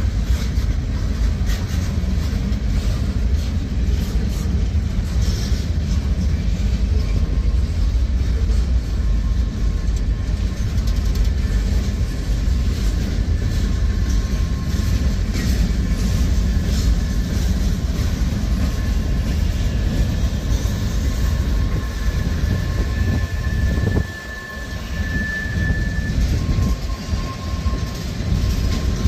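Freight cars of a manifest train rolling slowly past: a steady low rumble of wheels on rail. A thin high squeal comes in over it and is strongest about 25 seconds in, and the rumble briefly drops just before that.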